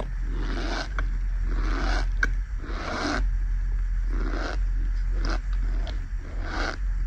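Fingers pressing and squeezing into a tub of powdered cornstarch, giving about eight squeaky crunches, roughly one a second.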